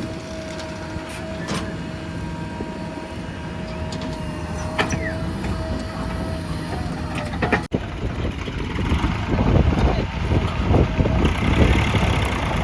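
Heavy diesel earthmoving machinery running, with a steady whine held over the engine drone. After a sudden break about two-thirds of the way through, a louder, rougher rumbling and clatter takes over.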